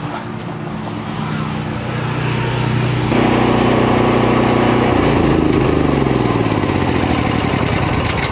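Pressure washer engine running steadily, joined about three seconds in by the loud hiss of the spray; around five seconds in the engine note shifts.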